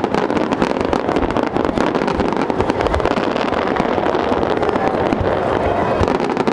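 Aerial fireworks going off in a dense barrage: many bangs in quick succession, with no let-up.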